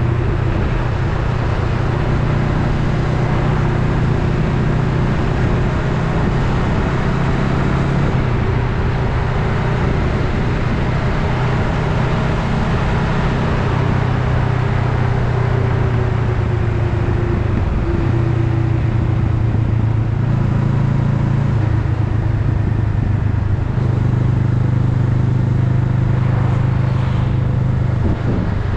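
Honda Rebel 500's parallel-twin engine running steadily while riding, with wind and road noise. The engine note shifts about eight seconds in and again a little past halfway, with a brief dip near the end.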